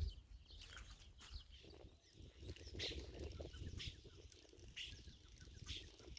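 Faint birds chirping: a short high call repeated roughly once a second, over a low rumble.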